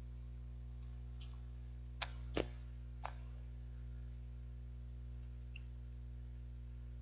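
Quiet eating sounds from a soft steamed rice cake (baekseolgi): a few short, sharp mouth clicks and lip smacks, the loudest about two and a half seconds in, over a steady low electrical hum.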